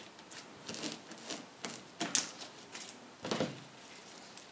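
Pink glue-and-borax slime being kneaded, folded and stretched by hand on a tabletop, giving an irregular string of short sticky clicks and pops.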